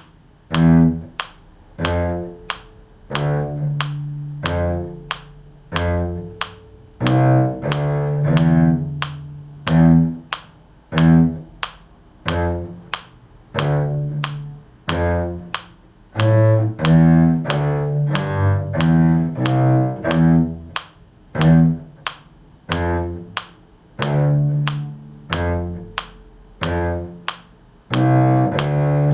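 Low string instrument playing a simple bass line in steady, short, separate notes that each die away quickly.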